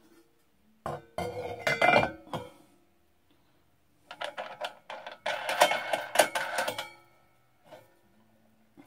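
A bronze crash cymbal clinking and ringing briefly as it is handled, lifted off the spindle of a homemade cymbal lathe and mounted again, with the metal nut and fittings clinking on the spindle. The clinks come in two bunches, about one to two and a half seconds in and again from about four to seven seconds.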